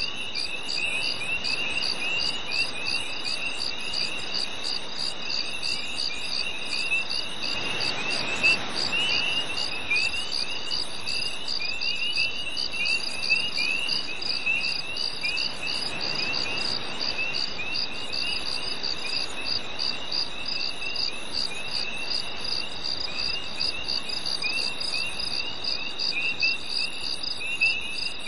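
Crickets chirping in a dense summer-night chorus: a steady high trill with an evenly pulsing chirp on top and scattered lower chirps. A soft rush of noise swells and fades twice, about eight and sixteen seconds in.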